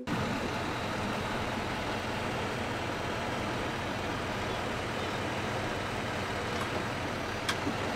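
Truck engine running steadily under a constant rushing noise, with one faint click about seven and a half seconds in.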